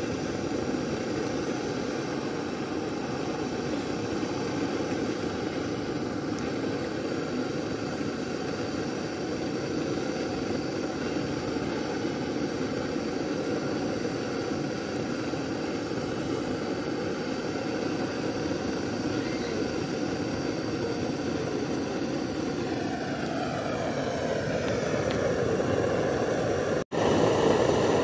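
Steady roar of a stove burner under the pan of tomato-egg curry, growing a little louder near the end, with a brief dropout shortly before the end.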